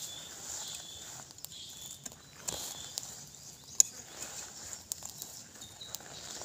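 Irregular rustling, scraping and snapping of dry leaves, twigs and soil as ground is cleared by hand, with one louder snap a little before four seconds in. A faint high chirping comes and goes behind it.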